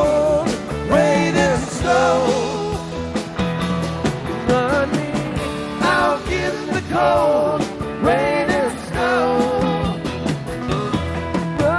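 Rock band playing live: a bending melodic lead line over bass and drums, with no words sung.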